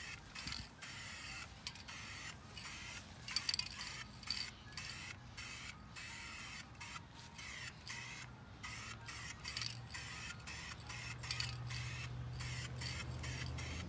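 Spray paint hissing onto a wheel rim in short, repeated bursts, about one or two a second, with brief gaps between them.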